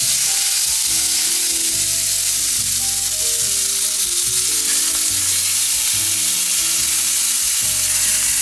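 Steak searing in a smoking-hot cast-iron grill pan brushed with avocado oil: a loud, steady sizzle. Background music plays underneath.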